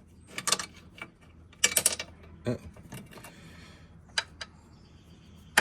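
Hand tools working the 12 mm bolts of a Yamaha Rhino 660's shifter: short bursts of quick metallic clicking and clinking, then a few single clicks, over a low steady hum.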